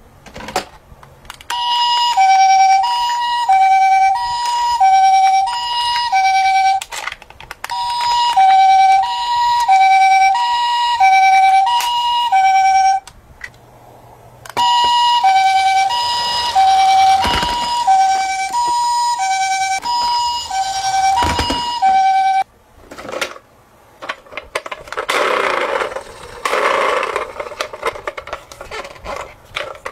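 Toy ambulance's electronic siren playing a two-tone hi-lo wail, switching between a higher and a lower note about once a second. It sounds in three runs with short breaks between them, then stops about three quarters of the way through, leaving softer rustling noise.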